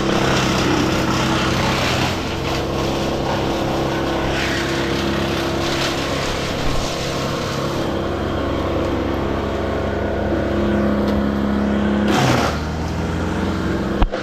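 An engine running steadily at a constant pitch. Its pitch dips briefly about twelve seconds in, and a short knock sounds just before the end.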